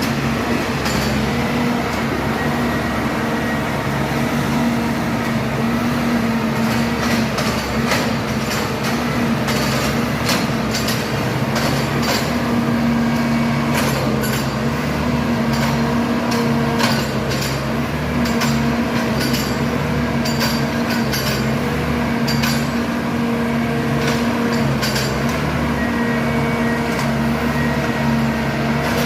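A railroad track-maintenance machine's engine running steadily with a constant hum. From about seven seconds in, frequent irregular metallic clanks and taps come from the track work.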